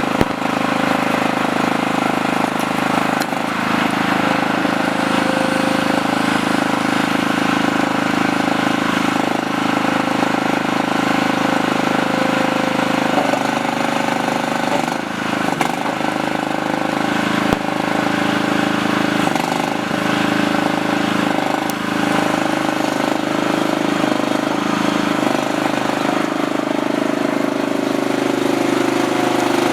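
Small skid steer loader's engine running steadily, its note shifting several times as the machine is worked.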